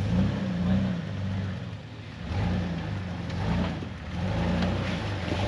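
Off-road vehicle's engine revving up and down in several surges as it crawls up a rock ledge under load.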